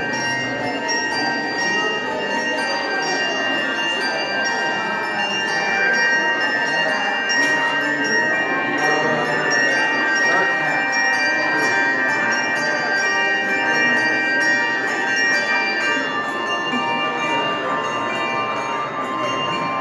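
Handbell choir playing a piece: many handbells ring out held, overlapping notes that change as the tune moves on.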